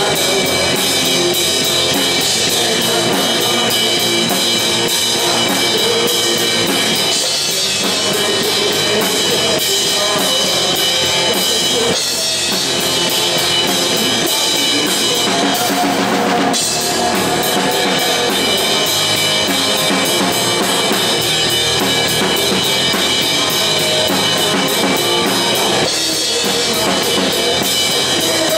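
Live rock band playing loudly: drum kit with bass drum, snare and cymbals, electric bass and electric guitar.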